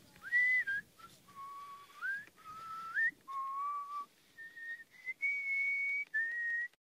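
A person whistling about seven held notes that step up and down in pitch, several of them sliding upward, with short breaks between notes.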